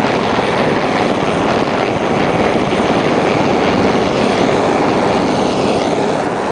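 Rescue helicopter running close by: a loud, steady rotor and engine noise.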